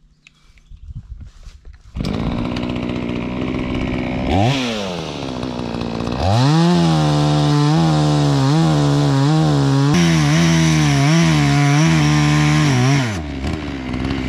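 Small two-stroke gasoline chainsaw coming in suddenly about two seconds in and idling, with one quick rev, then opened to full throttle and cutting through a log for about seven seconds, the engine pitch wavering as it takes the load. Near the end it drops back to idle.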